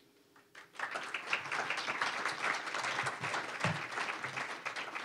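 Audience applauding. The clapping starts about a second in and tapers off near the end.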